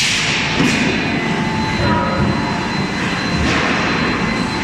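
Loud, steady machinery din of a forging shop, with the hydraulic die forging hammer's drive running, broken by a few thuds and clanks: at the start, about two-thirds of a second in, and about three and a half seconds in.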